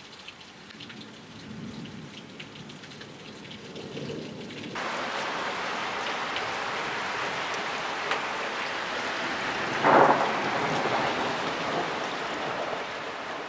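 Thunderstorm: steady rain hiss with low rumbling thunder. The rain suddenly gets louder about five seconds in, and a sharp, close thunderclap about ten seconds in is the loudest moment.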